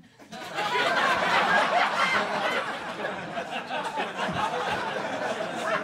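Audience laughing at a punchline. The laughter swells suddenly about half a second in, then slowly dies down.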